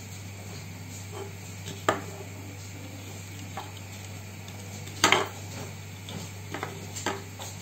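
Handling noise from a plastic T5 light fitting housing and its wire: a few light clicks and knocks, the loudest a double knock about five seconds in, over a steady low hum.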